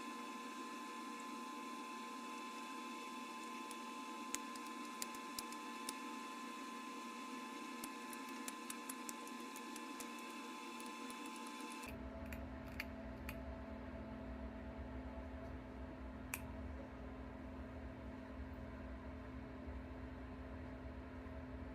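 Sparse sharp ticks of bottle glass being pressure-flaked, over a steady electrical hum. About halfway through the hum changes to a lower drone and the ticks thin out.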